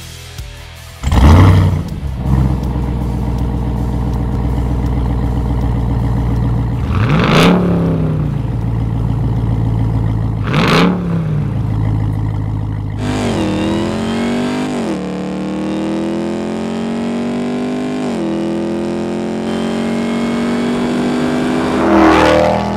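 Supercharged 6.2-litre V8 of a RAM 1500 TRX through a Borla ATAK cat-back exhaust. It starts up with a loud burst about a second in, idles, and is revved twice. It then accelerates, its pitch rising through a couple of quick shifts and climbing slowly, with one more rev near the end.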